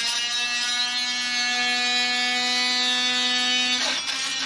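Fein oscillating multi-tool running steadily with a high whine while flattening hardened sawdust-thickened epoxy on a wooden rubbing strip. Its pitch dips briefly about four seconds in, then steadies again.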